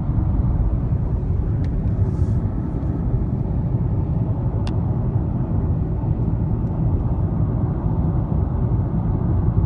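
Car driving: a steady low rumble of road and engine noise, with a faint tick about four and a half seconds in.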